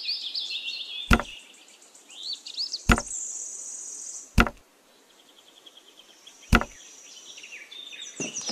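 Four sharp knocks, spaced one and a half to two seconds apart, as miniature clay brick-wall pieces are set down in place, over chirping birdsong.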